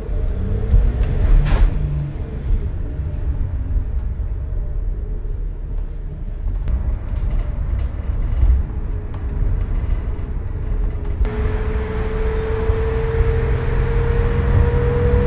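Driving noise inside the unlined, uninsulated bare-metal cargo area of a 2020 Mercedes-Benz Sprinter 3500 van: a low rumble of engine and tyres at street speed with a few rattles and clicks. About eleven seconds in it changes abruptly to louder highway noise, tyre and wind hiss with a whine that slowly rises in pitch.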